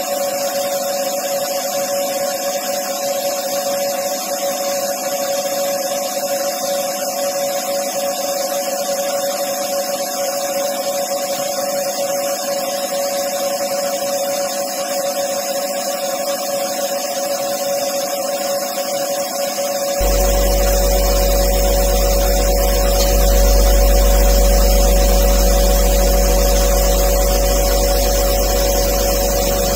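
CNC lathe running and turning a metal bar, with a steady spindle whine and a higher tone above it. About two-thirds of the way through, the sound changes abruptly: a deep low hum joins in and it gets louder.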